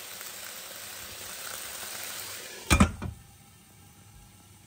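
Pancakes sizzling in a frying pan. A little under three seconds in, a glass lid is set down on the pan with a sharp knock and a smaller second one, and the sizzle drops to a faint hiss under the lid.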